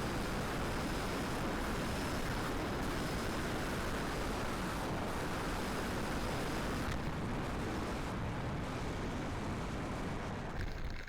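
Strong gusty wind buffeting the microphone: a steady, loud rumbling rush. A faint thin high whine runs underneath and stops about seven seconds in.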